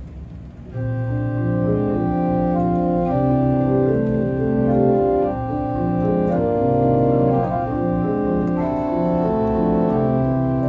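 Dulciana stop on the swell of a small 11-rank Rieger tracker pipe organ, playing a slow succession of sustained chords. The playing begins about a second in.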